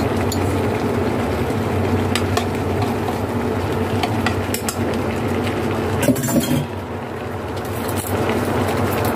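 Chicken and vegetables sizzling in a wok over a steady low hum, with scattered clicks of a utensil knocking against the pan as the curry paste is stirred in, densest from about four seconds in.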